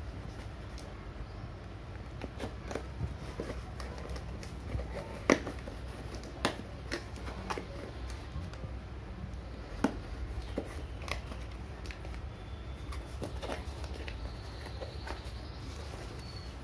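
A taped cardboard box being cut open and its flaps folded back by hand: scattered rustles, taps and a few sharp clicks of cardboard and packing tape, over a steady low hum.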